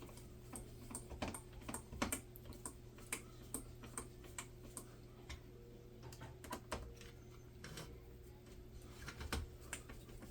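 Small screws being turned in by hand with a screwdriver on a plastic RC car kit: irregular light clicks and taps of the tool and plastic parts, a few each second, over a low steady hum.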